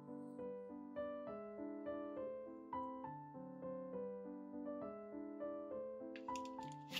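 Background piano music: a gentle tune of single notes, each struck and fading, over lower held notes. A short crackly rustle near the end.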